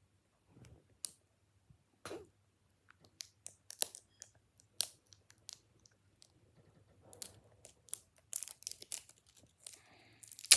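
Plastic shrink wrap being torn and peeled off a putty tin: scattered sharp crackles and clicks that become a denser crinkling run near the end.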